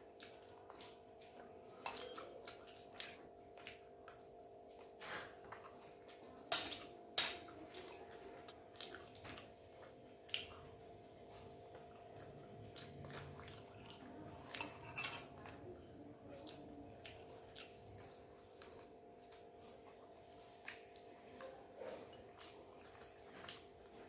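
Irregular clinks and scrapes of eating utensils against a plate or bowl during a meal, the loudest pair about six and a half to seven seconds in. A faint steady hum runs underneath.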